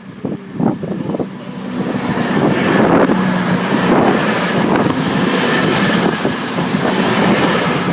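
Voyager diesel multiple unit passing by at speed: a rising rush of wheels and engines that builds over the first two seconds and stays loud, with a steady engine hum beneath it.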